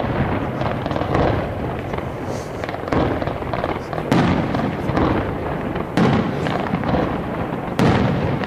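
Aerial fireworks display: shells bursting overhead with a sharp bang roughly every one to two seconds, about five in all, over a continuous rumble and crackle of the display.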